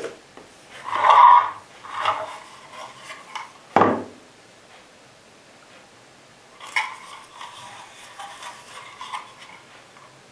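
Hands handling a plastic holster's small parts and paperwork: rustling and light clattering, with one sharp knock about four seconds in, then quieter fiddling.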